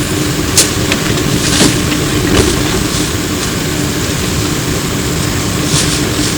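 Ride noise inside a Flyer E902 electric trolleybus: a steady rumble of road and body noise under a constant low hum, with a few sharp rattles and clicks.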